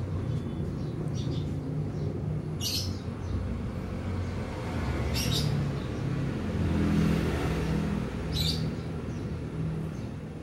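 Low engine rumble in the background, swelling a little past the middle, with a bird chirping briefly three times, a few seconds apart.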